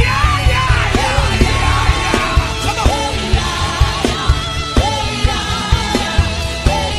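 Worship music with a steady bass beat and a voice singing over it.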